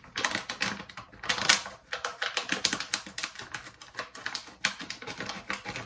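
Scissors snipping, cutting open a package of erva-mate: a run of quick, irregular snips.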